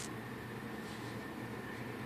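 Steady low hiss of room noise with a faint steady high tone running through it, and no distinct knocks or ticks.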